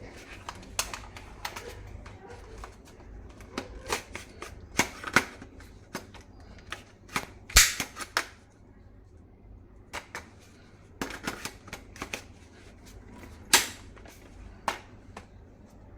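Plastic toy HK417 rifle being worked by hand: irregular sharp plastic clicks and snaps, with two louder cracks, one about halfway through and one near the end.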